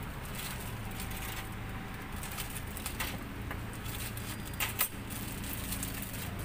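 Steel tongs clicking against skewers and a wire rack while a thin plastic bag crinkles, with two sharper clacks a little before five seconds in. A steady low hum runs underneath.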